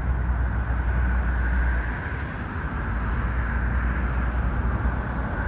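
Jet engine noise from a Boeing 787-8 airliner on departure: a steady rumble with a hiss on top.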